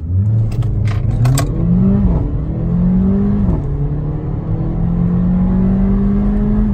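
Mercedes CLA45 AMG's turbocharged 2.0-litre four-cylinder engine at full throttle on a standing-start acceleration run on stock tune: the engine note climbs, drops sharply at two quick upshifts about two and three and a half seconds in, then climbs steadily in the next gear and falls away at the end as the throttle is lifted.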